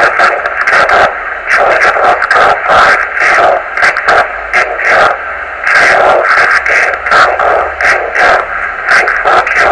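Weak single-sideband voice signal received by 10 GHz rain scatter, heard through the transceiver's speaker as a rough, hissing, speech-like rush in receiver noise, the words not intelligible.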